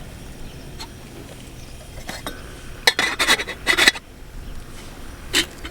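Cookware and metal utensils clinking and scraping, with a quick cluster of knocks and rasps about three seconds in and one more knock near the end.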